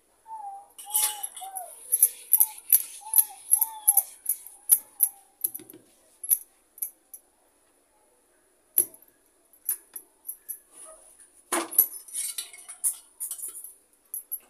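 Glass bangles clinking rapidly on a wrist as a paratha is rolled out with a wooden rolling pin on a wooden board, in quick runs of light chinks. There is one louder knock about twelve seconds in.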